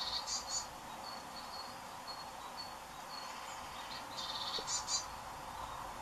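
Small garden birds calling: a short, high, rapid phrase at the start, repeated about four seconds in, with a string of thin, high single notes in between.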